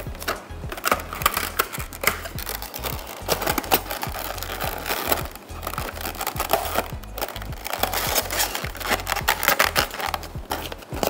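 Clear plastic blister packaging and a cardboard box being handled: irregular crinkles and clicks, over background music.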